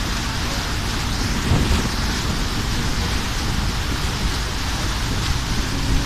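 Wind buffeting a phone microphone on open water: a steady rushing noise with low rumbling, and a heavier gust about one and a half seconds in.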